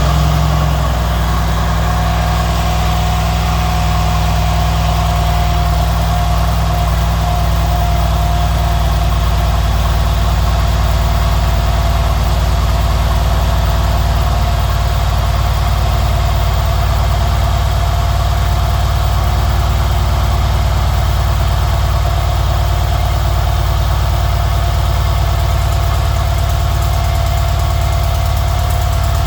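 Mercedes-Benz engine idling steadily with a ticking noise, over a steady high whine.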